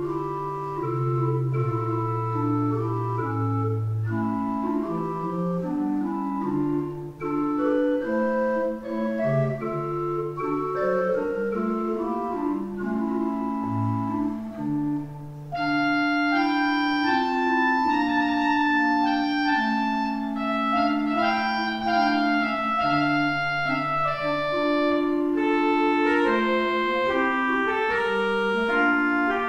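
Organ music: a slow piece of held chords over a moving bass line. About halfway through it turns brighter as higher notes come in strongly.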